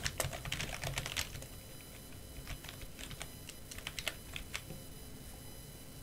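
Typing on a computer keyboard: a quick run of key clicks in the first second or so, then scattered single keystrokes.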